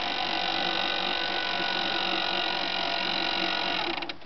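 Battery-powered electric winch running under load, a steady whine of many tones as it winds in its steel cable and hauls the rock-loaded cart; it cuts off with a click about four seconds in.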